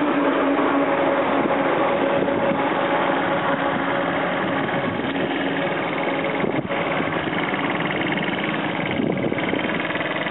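Small motor scooter engine running, over a steady rushing noise.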